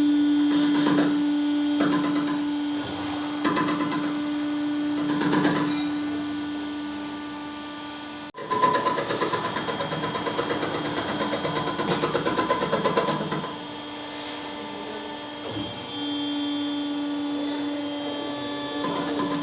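Machine-shop facing machine resurfacing a cast cylinder head to take out the warp: a steady motor whine that swells every second or two as the cutter works. About eight seconds in it breaks off sharply and gives way to a rougher, noisier cutting sound.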